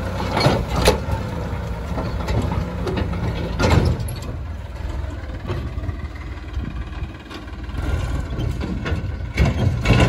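Tractor diesel engine running steadily while the trolley is emptied of mud, with several sharp clunks, loudest about four seconds in and again near the end.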